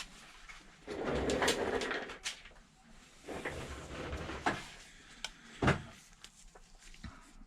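Handling noises on a repair bench: rustling and scraping of tools and objects being moved, with several sharp clicks and knocks, the loudest a little before six seconds in.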